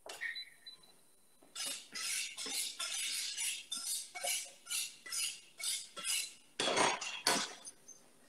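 A wire whisk beating béchamel sauce in a stainless steel saucepan, the wires scraping against the pot in a steady rhythm of about two strokes a second. A few louder strokes come near the end.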